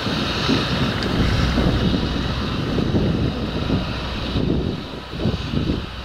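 Fendt 936 Vario tractor's six-cylinder diesel engine running steadily under load as it pulls a nine-furrow plough past, with a steady high whine over the drone. Wind buffets the microphone in gusts.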